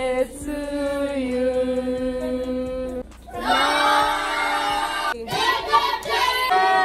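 Voices singing a birthday song, with a long held note, a short break about three seconds in, then another sung phrase.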